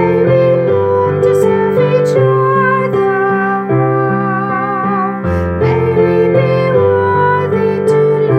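A woman singing a prayer song to piano accompaniment, with slow chords under her voice and vibrato on the held notes.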